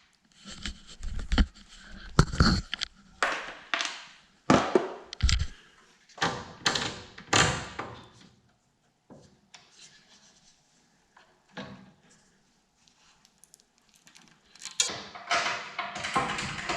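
A series of irregular knocks and thuds, about a dozen over the first eight seconds, then near quiet, with denser knocking starting near the end.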